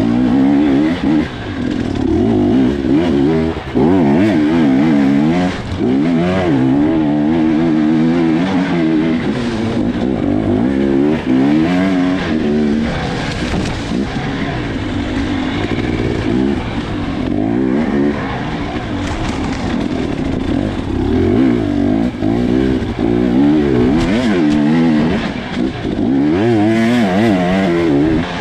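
Off-road racing motorcycle engine heard from the rider's helmet, run hard through woods trail, its revs rising and falling over and over as the throttle is worked, with a few short knocks.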